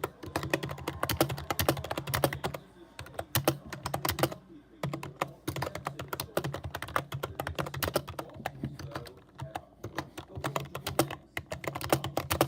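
Fast typing on a computer keyboard: a dense clatter of keystrokes with a couple of short pauses.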